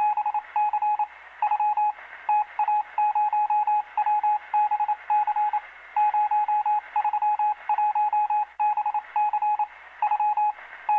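Rapid electronic beeping at one steady pitch, in irregular groups of short and longer beeps like Morse code, with a thin, telephone-like sound.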